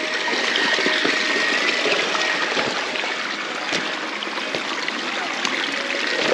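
River water flowing steadily, an even wash of running water.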